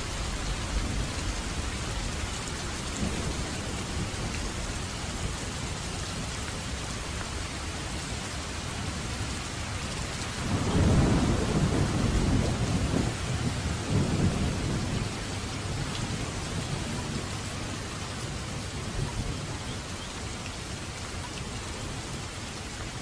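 Heavy rain falling steadily, with a roll of thunder rumbling about ten seconds in and fading away over the next few seconds.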